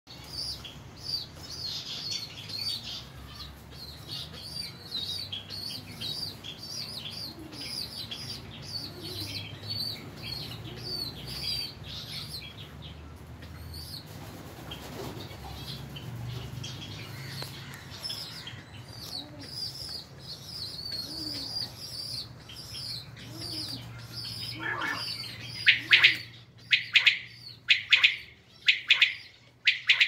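Small birds chirping quickly and repeatedly in high, short notes, with faint low cooing of caged pigeons underneath. A run of much louder, sharp sounds comes in the last few seconds.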